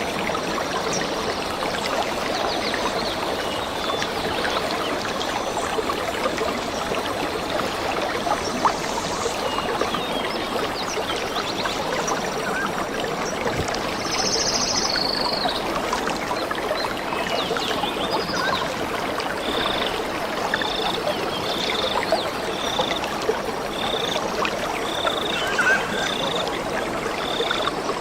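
A stream running steadily, with water trickling and splashing. In the last third, a small animal's short high call repeats evenly, about one and a half times a second.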